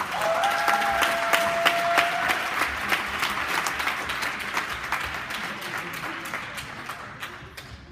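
Audience applause, many people clapping, gradually dying away over several seconds. One long, steady, high whistle sounds over it in the first two seconds.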